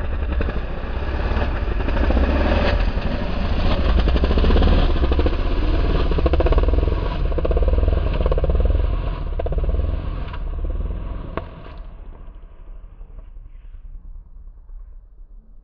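Motocross bike engine revving hard and easing off as it is ridden over a dirt track's jumps. It is loudest in the first ten seconds, then fades as the bike moves away after about eleven seconds.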